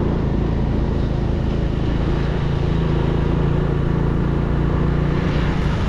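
Engine of a vehicle running at a steady speed, heard from on board while riding, a constant low hum with road and wind noise.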